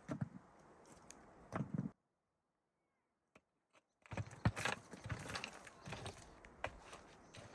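Irregular knocks and clatters of things being handled, with about two seconds of dead silence in the middle where the sound cuts out, and a busier run of knocks after it.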